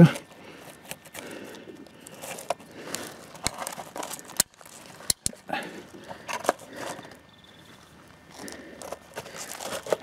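Handling noise from a digital multimeter and its test leads being moved and set down on gravel: scattered rustling and small clicks, with a few sharp clicks between about three and a half and five seconds in.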